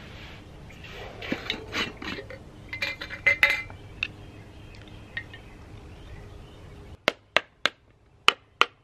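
Clinks and knocks of a small glass paint jar and paintbrush being handled and dipped. Near the end comes a quick run of about seven sharp, separate taps.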